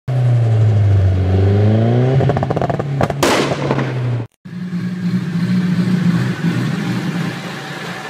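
Nissan Silvia S15's turbocharged engine revving up, then about three seconds in a rapid fluttering chatter and a loud hiss as the turbo's air is released on lift-off. After a short break the engine runs on steadily.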